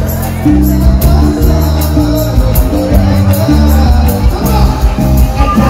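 Live band music through the hall's PA, a Malay-style pop song with a steady beat and a moving bass line, with a male singer's voice.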